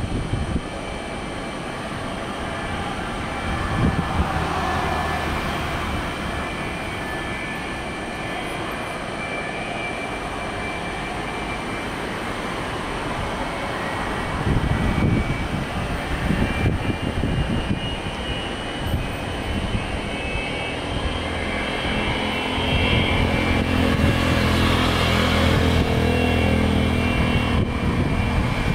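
McDonnell Douglas MD-83's rear-mounted Pratt & Whitney JT8D turbofans running, a steady jet whine over a low rumble. It grows louder in the second half as the jet moves out onto the runway for takeoff.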